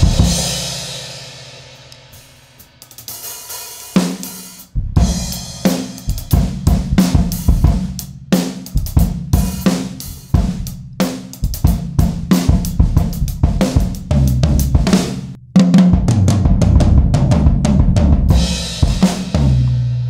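Acoustic drum kit played in a free jam: a loud cymbal hit rings out and fades over about three seconds, then snare, kick drum and cymbals pick up a busy groove about four seconds in. Another hard accent with a long cymbal wash comes about fifteen and a half seconds in, and the groove carries on under it.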